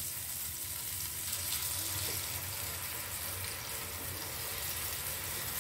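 Shallots, garlic and chopped chillies frying in hot coconut oil in a nonstick pan: a steady sizzle.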